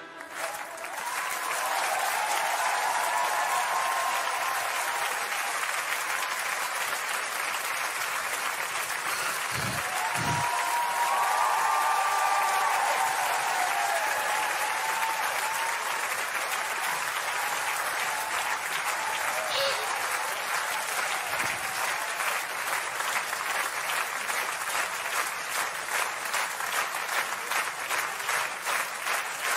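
Studio audience applauding and cheering, with shouts rising over the clapping. Near the end the applause settles into rhythmic clapping in time.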